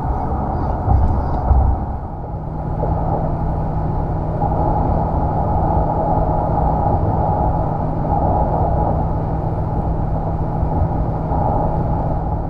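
Steady rumble of a car in motion, road and engine noise heard from inside the cabin, with a steady low hum joining about two seconds in.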